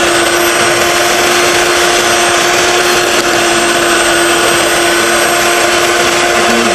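Electric hand mixer running at a steady pitch, its twin beaters whipping egg whites as sugar is added for a meringue.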